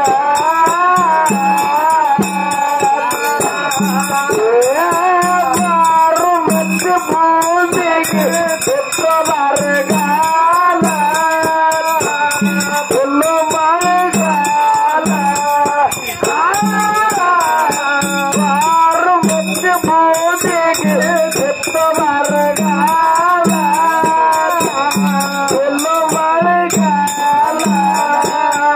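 Live Kannada dollina pada folk singing, a voice carrying the melody over a barrel drum beating about once a second, with small hand cymbals jingling throughout.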